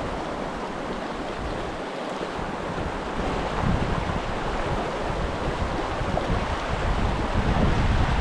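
Creek water rushing steadily, with wind gusting on the microphone as an uneven low rumble, stronger from about a third of the way in.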